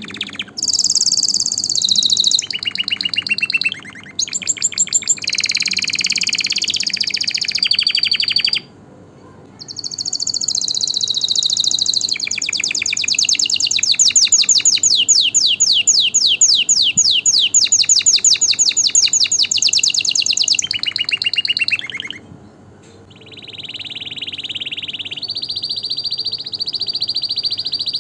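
Domestic canary singing: a string of phrases made of rapid repeated notes and rolls, broken by two short pauses, with a long fast trill of quickly repeated sweeping notes in the middle.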